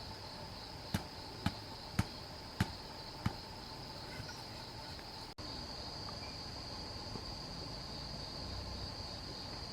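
Steady high-pitched insect chorus, crickets shrilling in the woods. Five sharp knocks come in the first few seconds, about half a second apart.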